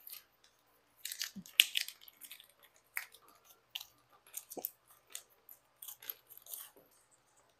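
Blue masking tape being peeled off a bundle of wooden toy axles: an irregular run of crackles and small clicks, with a few sharper knocks as the loose wooden axles drop onto the wooden bench.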